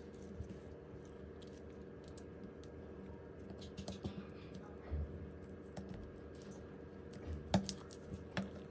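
Scattered small clicks and taps of tools and parts being handled during a smartphone repair, over a steady low hum; the sharpest tap comes near the end.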